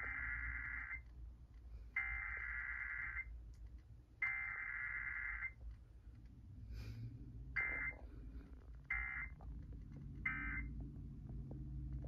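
Emergency Alert System digital data bursts (SAME header tones) for a required weekly test, played through a clock radio's speaker: three harsh electronic bursts about a second long and about a second apart, then three shorter bursts about a second and a half apart, the end-of-message signal.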